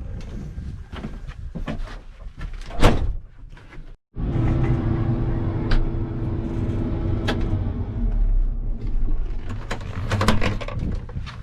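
A vehicle engine running with a low rumble, scattered clicks and knocks, and one loud clunk about three seconds in.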